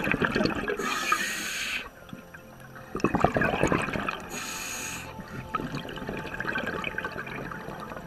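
Scuba diver breathing underwater through a regulator: bursts of bubbling with short hisses between them.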